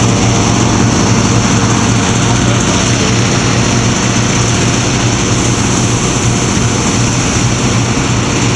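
Hot air balloon inflation: an engine-driven inflator fan running steadily with a loud, unbroken drone and a low hum.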